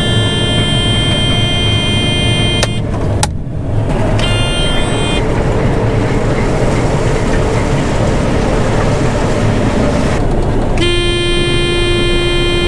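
John Deere 9500 combine running, with a steady, many-toned warning alarm sounding over it. The alarm breaks off about three seconds in, returns briefly, then comes back near the end. It is the tailings elevator low-speed warning, set off because the elevator's drive belt has come off.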